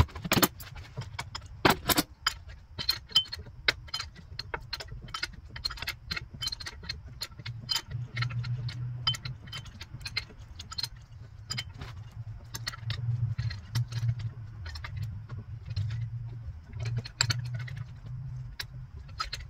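Hand tools clicking and clinking against metal as an alternator is worked on in a car's engine bay: irregular sharp metallic clicks, several a second at times, over a low hum that grows louder from about halfway through.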